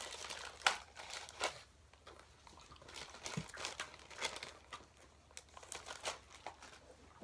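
Clear plastic wrapper crinkling and tearing as a dog cookie is unwrapped. The crackles come irregularly, thickest in the first second and a half, then sparser and fainter.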